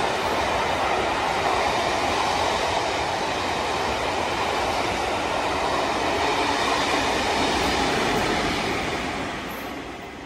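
A rake of Mk2 passenger coaches rushing past at speed: a loud, steady rush of wheels on rails that fades away over the last second or so as the end of the train goes by.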